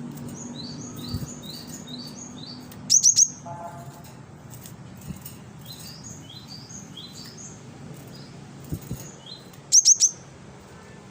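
Cinereous tit (gelatik batu) singing: quick repeated phrases of short, high, falling notes, with two louder bursts of three sharp notes, one about three seconds in and one near the end.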